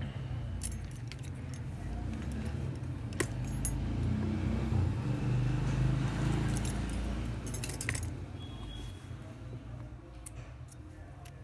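Scattered light metallic clicks and clinks of small tools being picked up and handled on a repair bench, over a low steady rumble.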